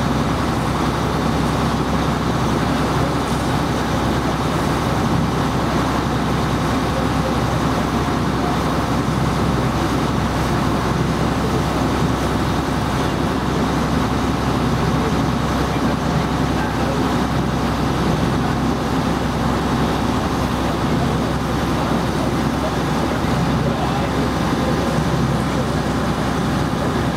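Steady engine drone of a vaporetto water bus heard on board, with voices in the background.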